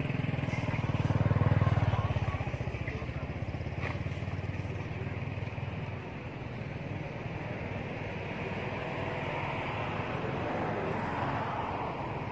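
Motor vehicle engine running steadily, louder about one to two seconds in, then easing to an even hum.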